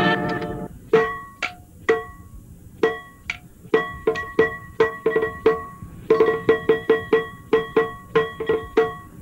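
A single pitched percussion instrument struck solo. It begins with a few spaced strokes, then plays quicker runs of about three to four strokes a second, each stroke ringing briefly.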